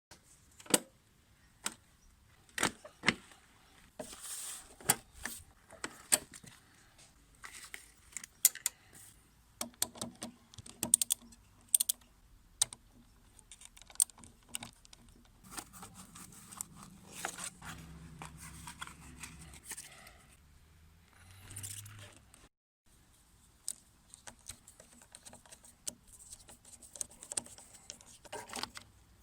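Scattered sharp clicks, clinks and metallic rattles of hand tools and small metal parts being handled, typical of a motorcycle battery being disconnected, lifted out and replaced.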